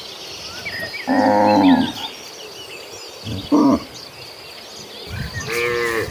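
Cattle mooing: a long low call about a second in, a shorter one past the middle, and another beginning near the end.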